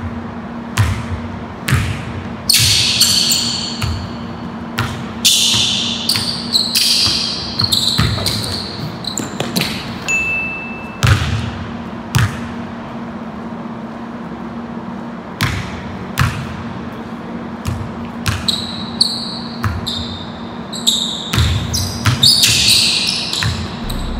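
Basketball dribbled and bounced on a hardwood gym floor in irregular runs of sharp bounces that echo in the hall, with bursts of high-pitched sneaker squeaks as the players cut and drive. A steady low hum runs underneath.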